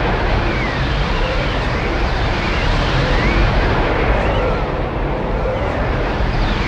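Swirling vortex sound effect: a steady, dense rushing noise with a deep rumble underneath and faint whistling tones that sweep up and down every second or two.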